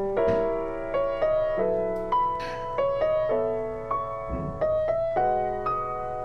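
Gentle solo piano background music, a new note or chord struck about every half second and left to ring.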